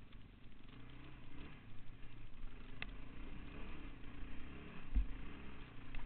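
Yamaha Raptor 660 quad's single-cylinder four-stroke engine running under load as the ATV climbs a dirt trail, its pitch shifting with the throttle. A sharp click about halfway through and low thumps near the end.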